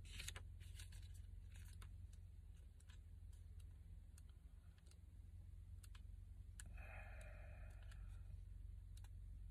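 Near silence over a steady low hum, with faint scattered clicks and a brief soft rustle about seven seconds in: small page-handling sounds as an oracle deck's guidebook is leafed through.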